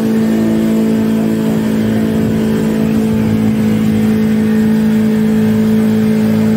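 Speedboat engine running at a steady pitch, with wind and water noise.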